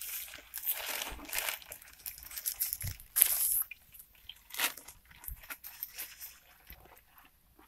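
Irregular rustling and scraping noises, the loudest a short scrape about three seconds in and another about a second later.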